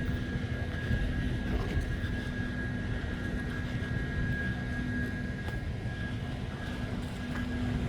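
Steady low drone of a car ferry's engines and machinery, with a constant hum over the rumble.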